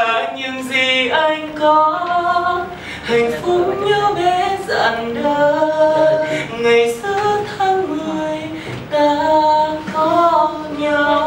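Young men singing a slow Vietnamese pop chorus a cappella, with no instruments: a lead voice holding long notes, with at least one other voice singing along.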